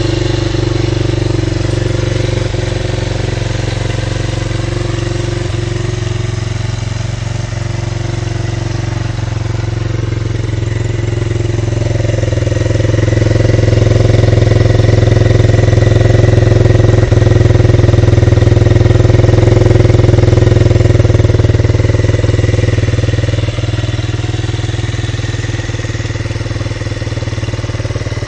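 Small single-cylinder air-cooled motorcycle engine idling steadily, with no revving. It is louder for a stretch in the middle, where it is heard close to the exhaust muffler.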